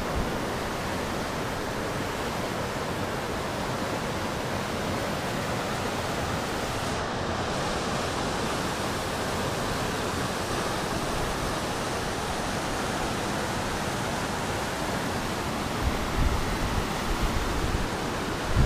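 River rapids and falls rushing over granite ledges, a steady even roar of whitewater. A few low wind buffets hit the microphone near the end.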